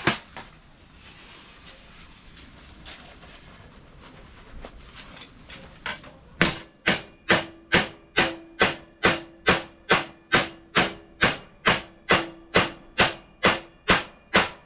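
Hammer striking a steel sheet-metal panel in a steady run of sharp blows, about two and a half a second, each with a short metallic ring, as a lip is formed in the panel. Before the hammering starts there is about six seconds of faint hiss with a few light knocks.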